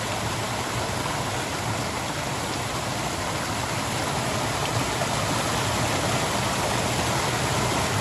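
Small waterfall cascading down rocks in a forest stream: a steady rush of water.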